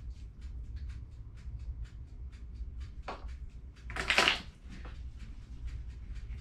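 A spoon stirring royal icing in a bowl: quick regular taps and scrapes against the bowl, about four a second, as warm water is worked into the sugar icing to bring it to consistency. About four seconds in there is one louder, longer scrape. A low steady hum runs underneath.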